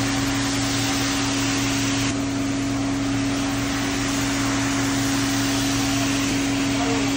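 Rotary floor machine running steadily, its brush scrubbing shampoo foam into a wet rug: a constant motor hum under an even hiss.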